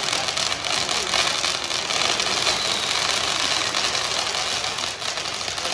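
Ground fountain firework spraying sparks: a steady, dense crackling hiss.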